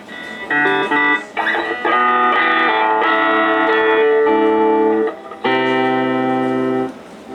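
Electric guitar played through a Fender Pro Junior tube amplifier, a run of chords ringing out one after another with short breaks between them: the amp being play-tested after its capacitors and tubes were replaced.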